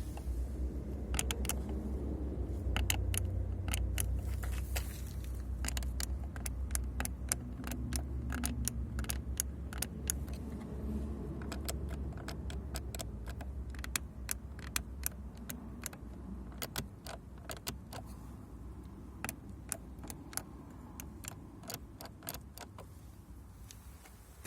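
Power window switches in a 2012 Hyundai Solaris creaking and clicking as they are pressed over and over: many short sharp clicks over a low steady hum. The squeak comes from switches worn by about 11 years of use.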